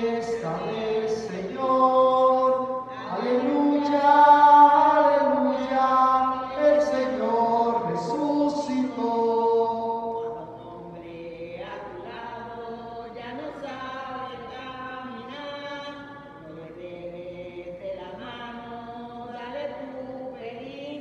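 Singing of a Spanish Easter alleluia hymn. It is loud for about the first ten seconds, then much softer.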